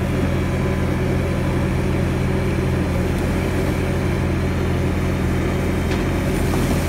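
Loader's engine running steadily at a constant speed while its bucket is tipped to dump a load.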